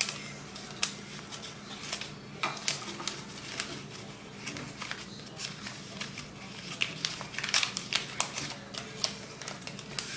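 Paper and tape being handled: irregular rustling, crinkling and sharp clicks as a paper rifle is built.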